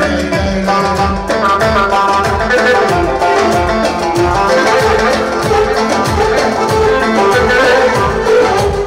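Music with plucked string instruments over a steady beat.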